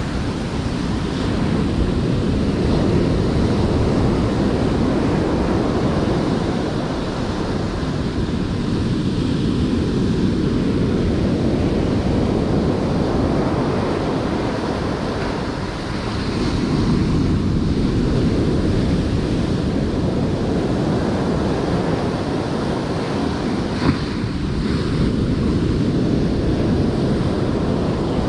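Ocean surf breaking and washing up a sandy beach, a steady rush that swells and ebbs with each wave. A single brief click about three quarters of the way through.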